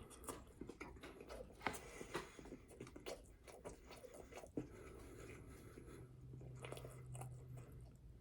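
Close-up mouth sounds of a person biting and chewing a bacon cheeseburger: a run of small irregular clicks and smacks. A low steady hum comes in for a few seconds in the second half.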